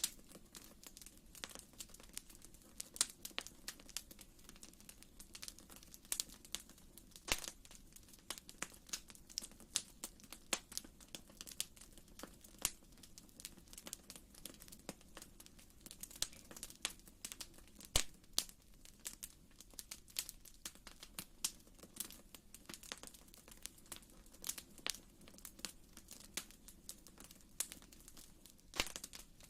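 Fire in a fireplace crackling, with many irregular small pops and snaps over a faint steady low hum.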